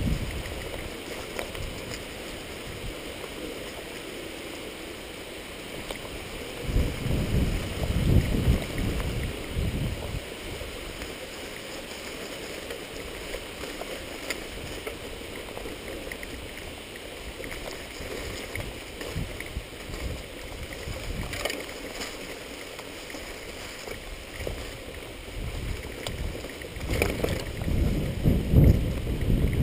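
Bicycle ridden over a rough grassy dirt trail: steady tyre rumble and rustle, with wind on the camera's microphone. Louder low rumbling swells about seven seconds in and again near the end.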